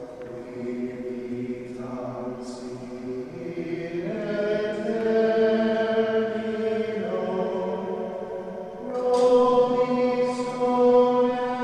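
Slow, chant-like singing with long held notes that shift every second or two, swelling louder about nine seconds in.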